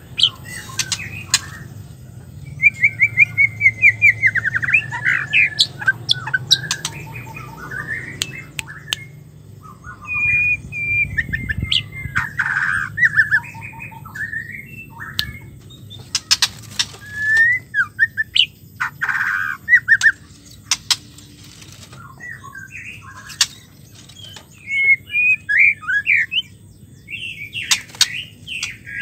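Female white-rumped shama singing in phrases of a few seconds, with quick chirps, squeaky glides and trills, and short pauses between phrases. Sharp clicks are mixed in with the song.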